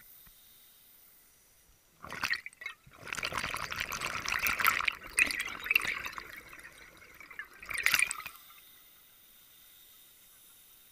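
Scuba diver exhaling underwater, the breath leaving the regulator as a rush of crackling bubbles right by the mask-mounted camera. There is a short burst about two seconds in, a long stream for about four seconds, and a last short burst near eight seconds.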